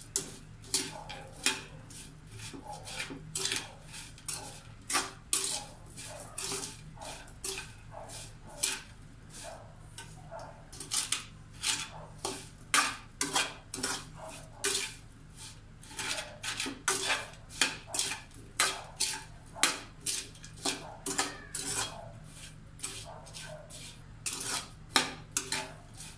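A metal utensil scraping and clinking against an aluminium wok while stirring sliced bananas and sugar, in repeated uneven strokes about one to two a second. The pan is dry and unheated, so there is no sizzle, only metal on metal and the slices shuffling.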